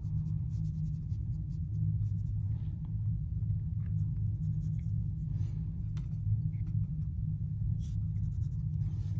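Water brush scrubbing and dabbing wet watercolour pigment on paper in soft, scattered scratchy strokes, over a steady low hum.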